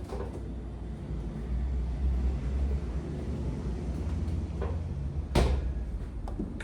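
Steady low rumble with a light knock at the start and a sharp, loud knock about five and a half seconds in, typical of a door or cupboard being shut while handling things in a kitchen.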